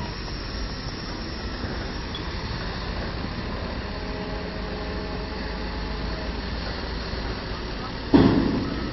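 Diesel engine of a construction crane running steadily as a low rumble, with a sudden loud knock-like sound about eight seconds in.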